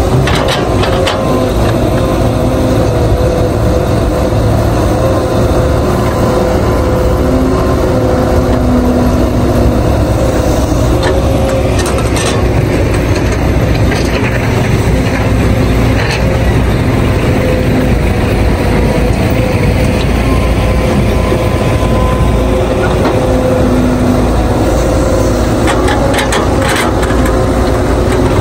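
Heavy diesel engine of a working Cat 312B hydraulic excavator running steadily under load, with a wavering whine over a continuous low drone. A few faint knocks come through, near the middle and near the end.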